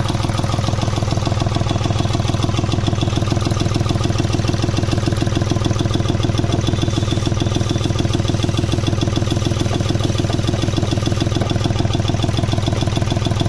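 An engine idling steadily, with a rapid, even pulsing.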